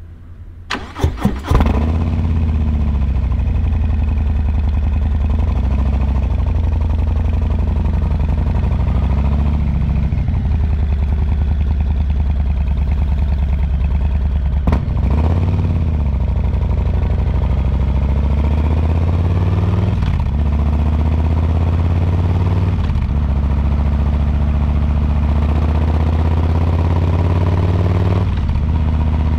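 2022 Harley-Davidson Low Rider S's Milwaukee-Eight 117 V-twin cranking on the starter and catching about a second in, then idling steadily. A single sharp knock about halfway through.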